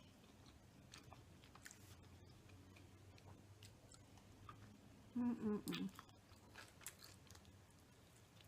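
Quiet close-up chewing of fried chicken, with soft wet mouth clicks. There is a brief voiced sound from the eater, like a hum, about five seconds in.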